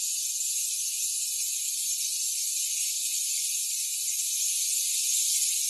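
Steady high hiss of water at a near-full boil in the Barisieur 2.0 coffee maker's induction-heated glass flask.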